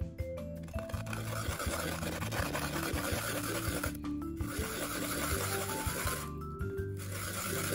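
A clove of garlic being grated on a flat metal grater: a steady scraping rasp that breaks off briefly twice, about four and six and a half seconds in.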